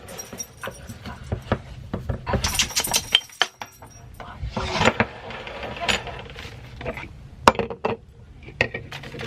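Scattered clinks, taps and knocks of small hard objects being handled, with a few brief rushes of noise in between.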